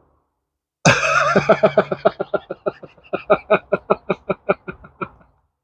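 A man laughing: a long run of short pitched 'ha' pulses, about five a second, starting about a second in and fading away near the end.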